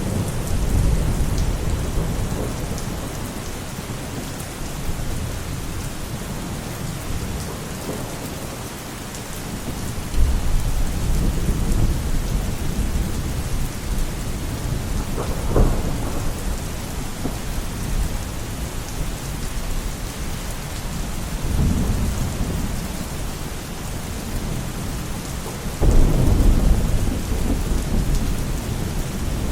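Steady heavy rain with thunder rumbling again and again. There is a short sharp crack about halfway through, and the loudest rumble comes near the end.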